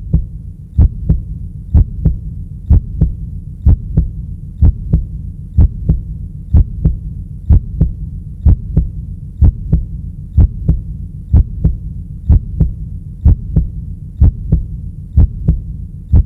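Heartbeat sound effect: a steady double thump about once a second over a low hum.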